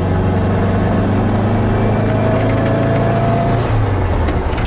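1970 Volkswagen van's rebuilt air-cooled flat-four engine pulling under acceleration, heard from inside the cabin. Its pitch rises slowly, then falls away about three and a half seconds in, with a light click near the end.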